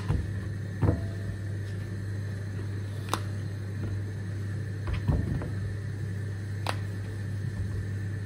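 A few light clicks and knocks of mushrooms being handled on a bamboo cutting board and set into a ceramic bowl, spaced a second or two apart, over a steady low hum.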